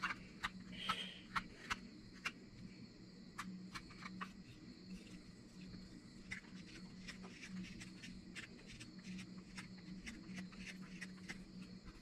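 Short, sharp knife strokes shaving a wooden spoon during finishing cuts. They come in a quick run over the first few seconds, then as scattered single cuts, over a steady high chirring of insects.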